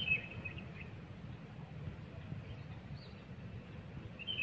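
A small bird chirping: a quick cluster of high chirps at the start and another at the very end, with a faint one in between, over a steady low background rumble.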